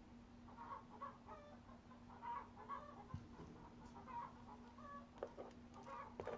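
Chickens clucking, faint: a run of short, repeated calls, over a steady low hum. A couple of sharp clicks come near the end.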